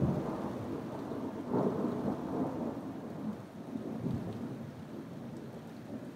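Thunder: a sudden sharp clap, then a long rolling rumble that swells again about a second and a half in and slowly fades.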